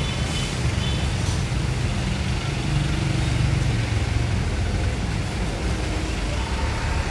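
Street traffic noise: a steady low rumble of vehicle engines, swelling a little about three to four seconds in.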